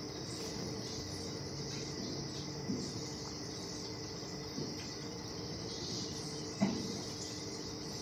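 Steady high-pitched chirring of insects, with a low steady hum beneath it and a few soft knocks, the sharpest about two-thirds of the way through.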